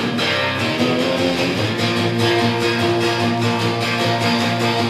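Acoustic guitar strummed hard with rapid, steady strokes, a solo instrumental break with no singing.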